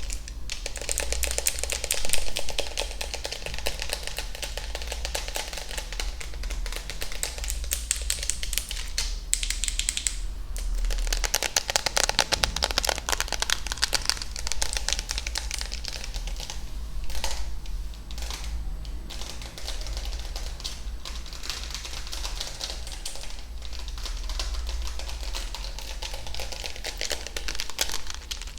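Rapid, dense clicking and tapping close to a sensitive microphone, like a stream of fast ASMR trigger sounds, broken by a few short pauses.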